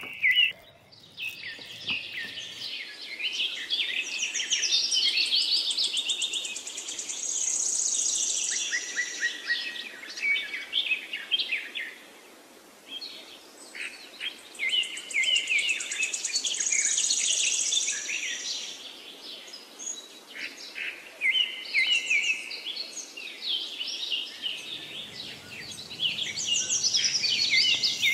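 Birds chirping and singing in quick, high trills, with the same passage seeming to come round again about every nine seconds.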